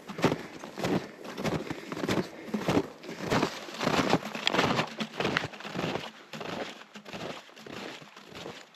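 Snowshoe steps crunching through cold, loose snow, a step roughly every half to two-thirds of a second, a little softer over the last few seconds.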